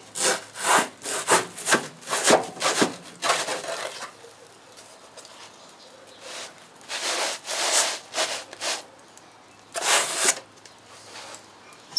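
A thin board pizza peel scraping and rasping across the oven's stone floor in repeated short strokes, as the pizza is slid out, turned and pushed back in. The strokes come thick for the first few seconds, pause for about two seconds, then come again in two shorter spells.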